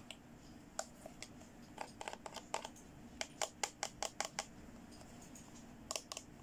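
Hands handling a small hard-plastic toy handbag, making sharp clicks and taps. The clicks come mostly in a quick run through the middle, with a couple more near the end.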